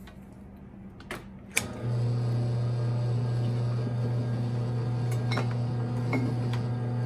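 Electric wire stripping machine switched on with a click about a second and a half in, its motor then running with a steady hum, with a few light clicks as the wire is fed through.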